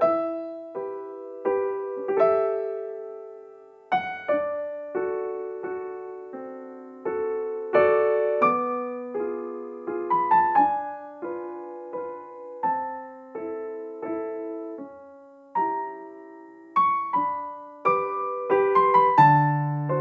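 Background music: gentle solo piano playing single notes and chords at an unhurried pace, each note ringing and fading.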